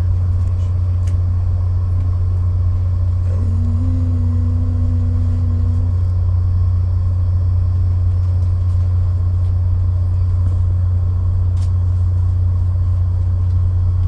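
Steady low drone of a stationary passenger train, heard from inside the carriage. About three seconds in, a steady tone joins it for a couple of seconds, then stops.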